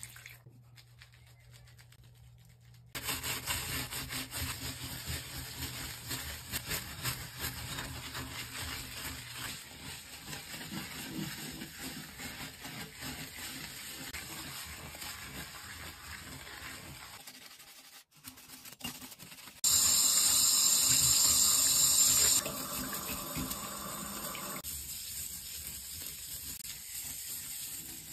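Tap water running into a glass vessel sink and a bristle brush scrubbing the wet, soapy glass. About twenty seconds in, a much louder hiss lasts for about three seconds.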